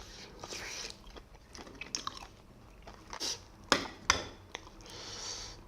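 Close-miked eating: wet chewing and lip-smacking on steamed scallop meat in spicy chilli sauce, with a few sharp smacks and clicks about two thirds of the way through.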